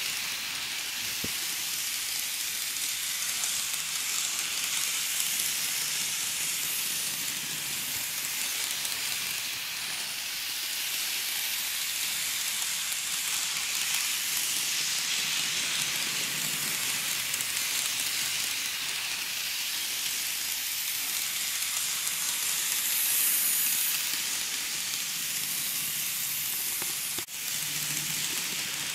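N-gauge model electric train (KATO JR 211 series) running around its track: a steady hissing rattle of small wheels on the rails and motor, swelling and easing as the train circles. A single sharp click comes near the end.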